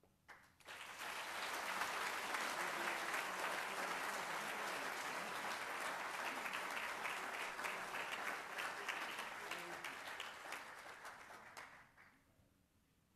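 Audience applauding. It starts about half a second in, builds quickly to a steady clapping, then tapers off and stops near the end.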